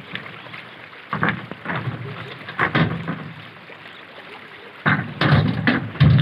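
River stones being handled and tossed into a dump truck's bed by hand, giving irregular knocks and thuds a few seconds apart over the steady rush of the river, with bits of men's voices.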